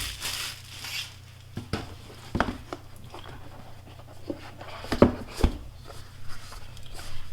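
Cardboard packaging of an iPad Pro box being handled and opened: soft rubbing and sliding, then scattered light taps and knocks.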